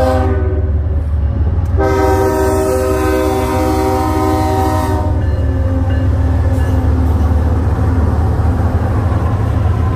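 Diesel freight locomotive horn blowing one long blast, after the tail of an earlier note at the very start, over the steady low rumble of the locomotives passing close by.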